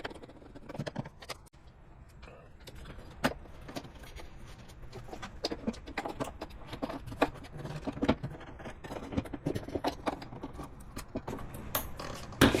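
Irregular clicks, taps and light scrapes of hands working on a car's plastic engine airbox during an air filter change, growing busier in the second half, with one sharper knock near the end.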